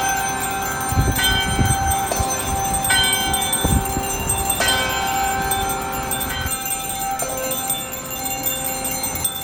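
Church bells tolling: a new strike every one to two seconds, each ringing on over the last, with a few low rumbles about a second in and near the middle.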